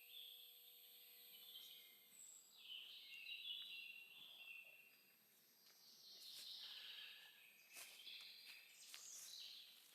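Faint birdsong in the woods: small birds chirping in short, repeated note phrases, with a few faint clicks or rustles in the second half.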